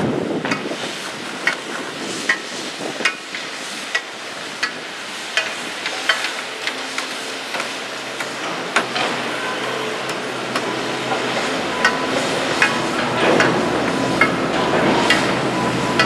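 Construction-site noise: irregular hammer blows, about one a second, over a steady background of site machinery. A faint steady whine joins in about halfway through.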